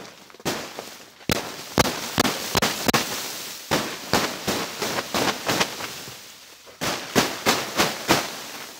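A hand striking the underside of a snow-laden plastic tarp roof from inside, a quick irregular series of sharp slaps and pops with a hiss between hits as the snow is knocked loose. The roof is being cleared so the snow load won't collapse it. There is a short pause about two-thirds of the way through.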